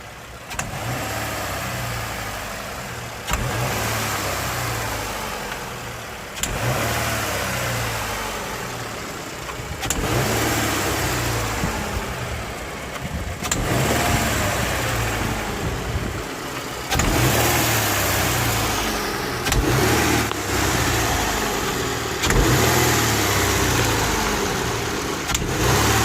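2017 Subaru Crosstrek's 2.0-litre flat-four engine being revved again and again from idle, a blip about every three seconds that rises sharply and falls back slowly. It is being checked for a tick that appears on rev-up once the engine is warm.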